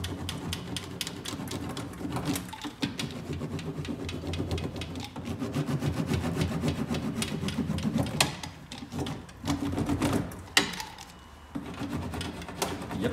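A plastic pressing tool rubbed and pressed rapidly over a self-adhesive vibration-damping mat on a car door's inner metal skin, bonding the mat to the panel: a fast, scratchy clatter of many short strokes, with a low steady hum underneath.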